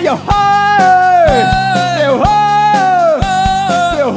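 Live rock band: a male lead vocalist sings a run of long held notes, each sliding down at its end, over electric guitar, bass and drums.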